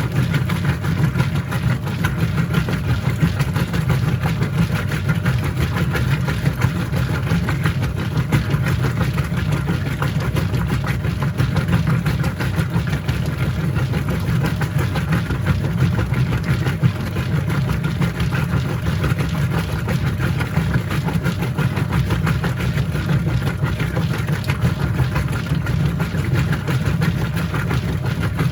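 Whirlpool top-load washing machine running mid-cycle: a steady, low motor hum that holds even without pauses.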